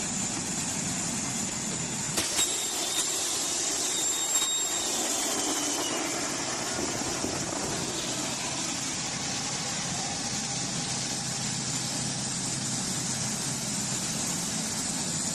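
Aircraft evacuation slide deploying: a sharp click about two seconds in, then a rushing hiss as the slide inflates for several seconds, over a steady background hiss. A low steady hum remains after the inflation dies away.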